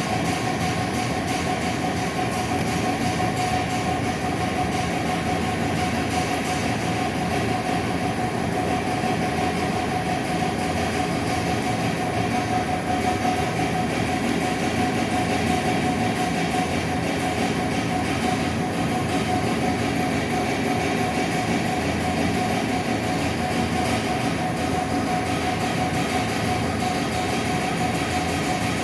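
Steady, even mechanical noise with a constant hum running through it, holding the same level throughout, with no distinct bangs standing out.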